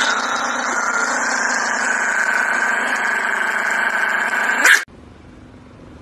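Pomeranian making one long, steady vocal noise that holds the same pitch for nearly five seconds, then cuts off abruptly.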